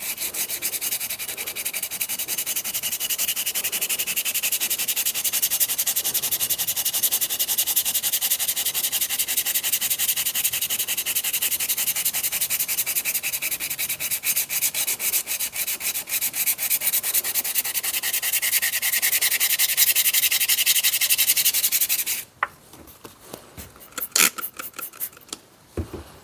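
240-grit sandpaper rubbed quickly back and forth by hand over a steel axe head, a steady scratchy rasp of light strokes that strips the patina and bluing down to bare metal. The sanding stops suddenly about 22 seconds in, followed by a few light taps.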